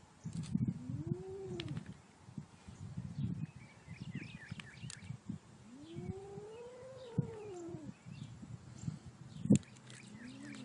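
Kitten yowling defensively, two drawn-out wails that rise and then fall in pitch, the second longer than the first, with a short rising call near the end. A sharp knock sounds about nine and a half seconds in.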